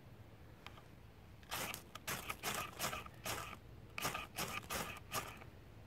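A ferrocerium fire steel scraped hard with a knife blade, about nine quick rasping strikes in two runs with a short pause between, throwing sparks onto feather-stick curls to light them.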